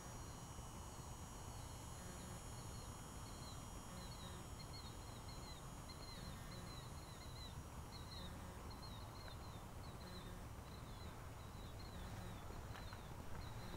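Faint outdoor night ambience: a steady low rumble with a faint high chirping repeated a few times a second through most of it, and a few clicks near the end.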